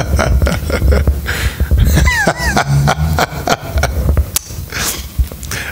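Handling noise on a handheld microphone: irregular thumps and clicks, with a couple of short pitched squeaks about two seconds in.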